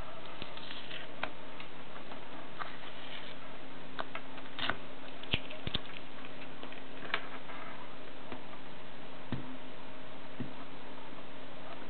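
Scattered small clicks and taps, irregular and about a dozen in all, from small ferrite cores and wire being handled. Under them runs a steady background hiss with a faint low hum.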